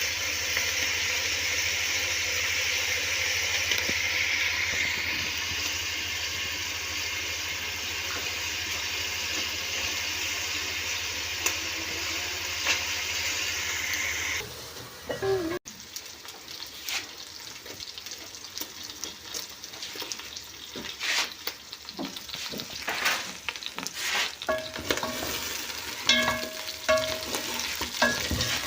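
Cooked chicken pieces frying in a pan with a steady sizzle. After a cut about halfway through, the sizzling is quieter, with the clicks and scrapes of stirring.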